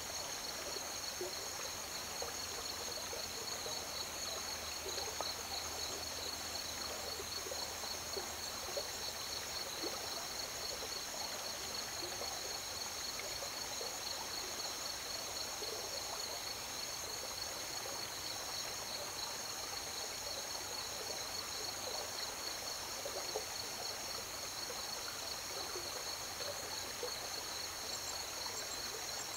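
River water flowing and trickling steadily, under a continuous high-pitched chorus of crickets.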